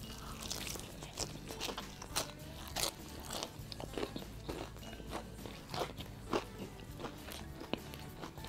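Close-up crunching and chewing of crispy fried chicken coating, a crisp crunch about every half second.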